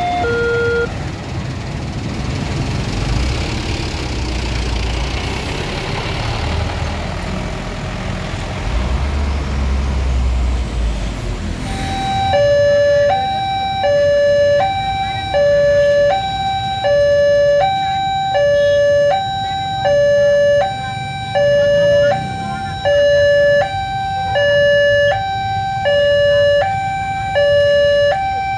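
Road traffic at a railway crossing with the low rumble of heavy vehicle engines. About twelve seconds in, a railway level-crossing alarm starts: an electronic two-tone warning that alternates steadily between a lower and a higher pitch, each held about three-quarters of a second. Under a second in, the last of another two-tone crossing alarm cuts off.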